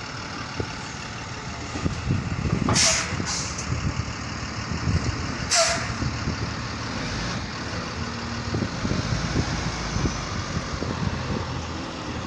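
School bus engine idling steadily, with sharp hisses of air let out by its air-brake system: a double hiss about three seconds in and another near six seconds.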